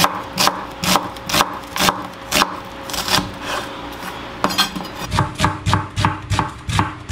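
Chef's knife slicing a red onion into strips on a wooden cutting board: the blade knocks on the board about twice a second, then after a short pause comes a quicker run of cuts, about three a second.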